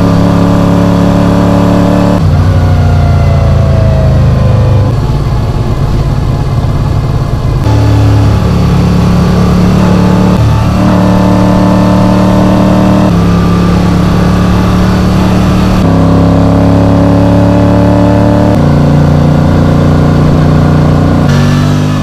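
Moto Guzzi V35's air-cooled 90-degree V-twin running under way, heard from the rider's seat. The engine's pitch holds level and then steps up or down every few seconds as the revs change, with a slow fall in pitch a few seconds in.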